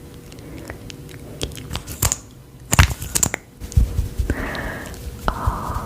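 Close-up crunching and crinkling noises with scattered sharp clicks and short rustling bursts.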